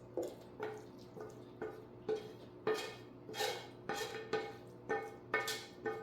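Background music of plucked string notes in a steady rhythm, about two notes a second.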